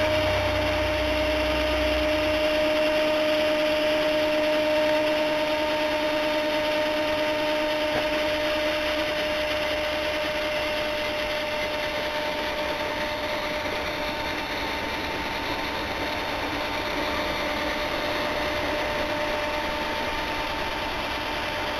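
A 12-volt cordless drill motor spinning a homemade model snowplow's vacuum-cleaner impeller: a steady high whine over a rushing hiss as the impeller churns through snow.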